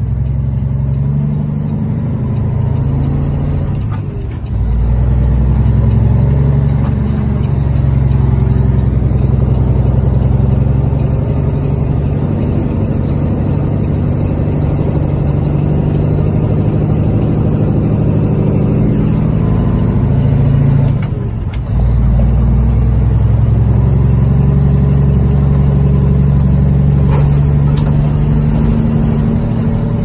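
Peterbilt semi-truck's diesel engine running under load, heard inside the cab as a steady low drone. It drops off briefly about four seconds in and again about twenty-one seconds in, then comes back louder each time.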